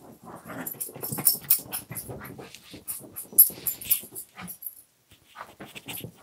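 Shih Tzus playing: dog sounds among irregular scuffling and clicks, busiest in the first four seconds, with a short pause about a second before the end.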